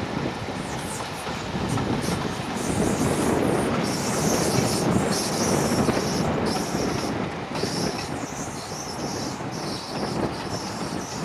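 Class 31 diesel locomotive with its English Electric 12SVT engine, running past with its train, loudest a few seconds in as it goes by and easing after.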